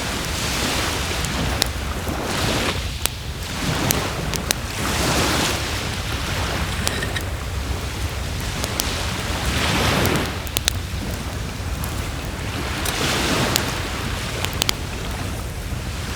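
Wood fire crackling, with frequent sharp pops, over waves breaking on the shore that swell and fade every few seconds.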